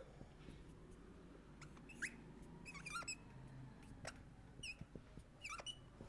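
Faint squeaks of a marker writing on a board, a handful of short chirping strokes scattered through, over a low room hum.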